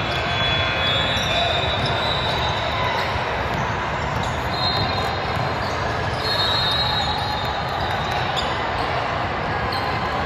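Basketball game in a gym: the ball bouncing on the hardwood amid a steady din of crowd chatter, with high squeaks coming and going.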